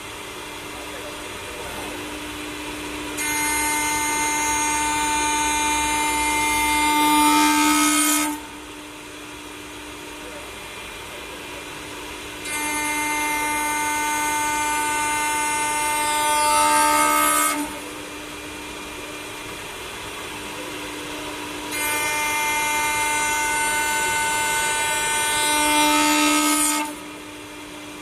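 CNC wood turning lathe running through repeated cutting cycles: three times a high, many-toned whine with hiss sets in for about five seconds, grows louder near its end and cuts off, over a steady machine hum.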